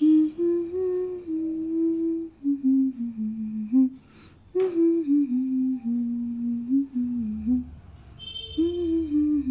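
A woman humming a slow tune in held, stepped notes, with a single light knock about halfway through.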